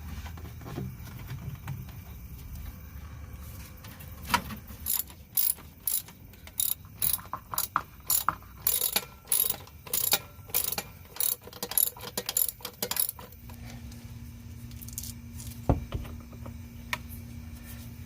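Ratchet wrench being worked in quick strokes, clicking about two or three times a second as bolts are run down. Near the end it stops, leaving a faint steady hum, then a single loud knock.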